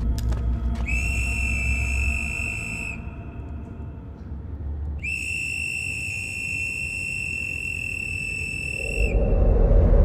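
A small handheld whistle blown in two long, steady, high-pitched blasts: the first lasts about two seconds, the second about four. A low rumble runs underneath and grows louder near the end.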